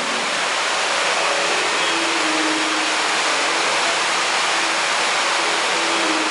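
Loud, steady rushing mechanical noise with a faint hum, a sound effect in the mime act's soundtrack.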